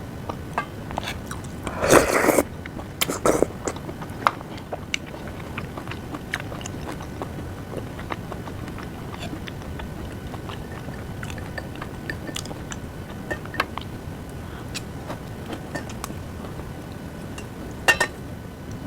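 A person eating a meal of seaweed soup and rolled omelette, chewing and biting close to the microphone, with many small clicks throughout. There is a louder noisy burst about two seconds in and another near the end.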